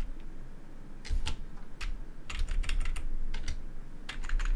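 Computer keyboard being typed on: short, irregular runs of key clicks with pauses between them, the first run starting about a second in.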